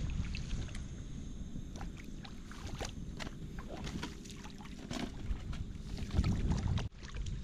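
Water splashing and sloshing as people wade through shallow sea water, with scattered irregular splashes over a steady low rumble.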